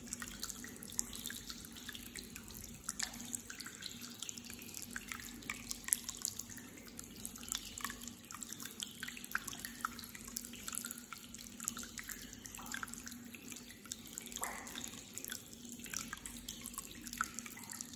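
Hot spring water trickling and dripping into a rock-lined bath: a steady run of water with many small, irregular drips and splashes.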